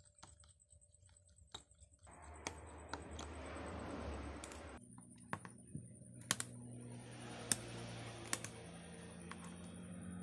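Light, sharp plastic clicks and taps with rustling handling noise, from an Advan smartphone's plastic case and midframe being taken apart by hand.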